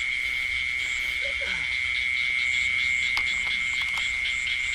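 Night chorus of frogs and insects: a steady high-pitched trill with a regular pulsing chirp above it.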